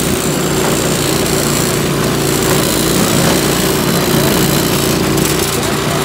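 Toro 621 QZR single-stage snow blower running steadily, its four-stroke engine holding an even pitch as it clears snow.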